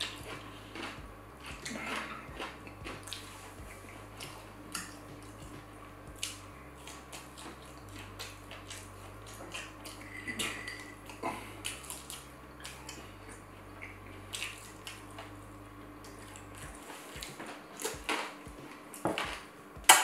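Close-miked eating: chewing and mouth sounds of chicken wing suya, chips and salad, with scattered short clicks and clinks of dishes, over a faint steady hum.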